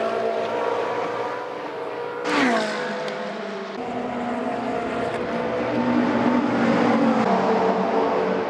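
GT race car engines running at racing speed. A little over two seconds in, one car passes close, its engine note dropping sharply in pitch as it goes by. Then the engines of a pair of cars grow louder as they come down the straight.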